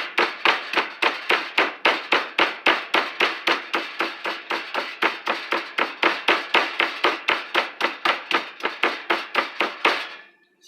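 Meat tenderizer hammer pounding a chicken breast through plastic wrap on a cutting board: a steady run of rapid blows, about four a second, stopping about ten seconds in.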